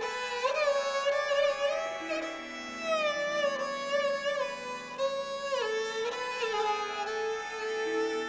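Sarangi played with the bow in a Hindustani classical recital: long sustained melody notes joined by smooth slides up and down in pitch, over a steady drone underneath.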